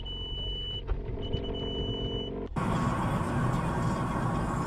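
Electronic warning beeps inside a car: two long, steady high tones of about a second each, over an idling engine. About two and a half seconds in it cuts to the steady engine and tyre noise of a car driving along a road.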